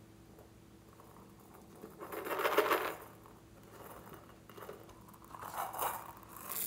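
Hollow plastic toy container being handled and opened, with a loud clattering scrape about two seconds in. Small foam beads then spill out of it and patter onto slime, with a last short clatter at the end.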